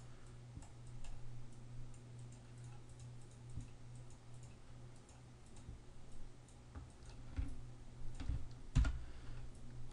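Faint computer mouse clicks and taps over a steady low electrical hum, with a louder knock near the end.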